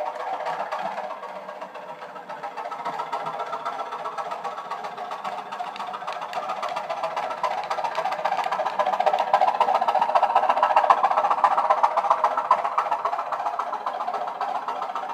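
OO gauge model diesel-electric multiple unit running past with its DCC sound chip playing a 'Thumper' diesel engine recording through small speakers, over a rapid clicking of the model's wheels on the track. It grows louder as the train passes close, then drops away suddenly near the end.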